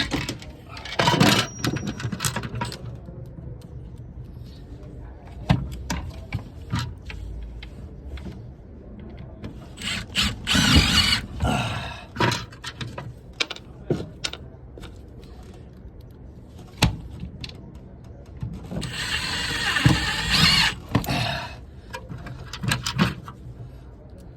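Power drill driving screws into the ductwork in three short bursts, with clicks and knocks of tools and metal parts being handled in between.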